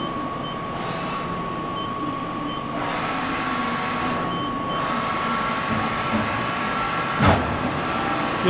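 Heckler & Koch BA 30 vertical CNC machining centre running with its axes traversing at speed: a steady whine over continuous machine noise, which grows louder about three seconds in. A single sharp knock comes near the end.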